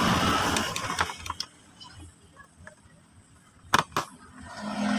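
A screwdriver working on a disassembled electric iron's plastic housing: a few small clicks, then two sharp clicks a quarter of a second apart as the screwdriver tip is set onto a screw. A vehicle's rushing noise fades out in the first second and a low engine hum starts near the end.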